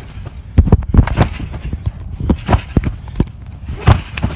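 Trampoline mat thudding under a person bouncing and landing flips: a series of sharp, irregular thumps in small clusters.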